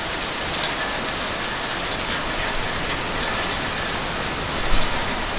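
Hailstorm: hail pelting down hard in a dense, steady hiss, with scattered sharper ticks of stones striking.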